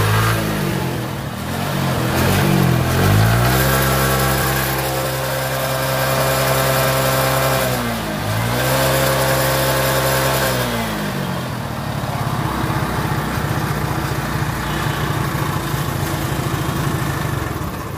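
TVS XL 100 moped's single-cylinder four-stroke engine heard at the exhaust, revved up and held about three seconds in, dipping briefly and rising again, then dropping back to a steady idle about eleven seconds in.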